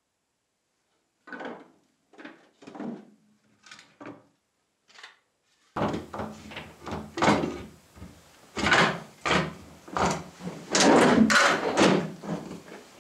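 Short scraping strokes of hand work on a knife: a few spaced, quieter strokes, then from about six seconds in louder strokes roughly two a second.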